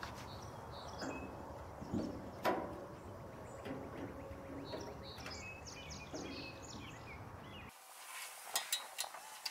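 Birds chirping, with a few light clicks and clinks from hands working on a small lawn tractor engine. The low background noise cuts off abruptly near the end, followed by a few sharp clicks.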